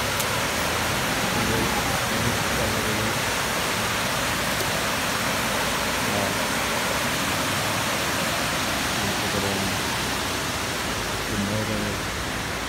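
Steady rushing of river water spilling over a small weir drop in a concrete-lined channel, a constant white-noise rush.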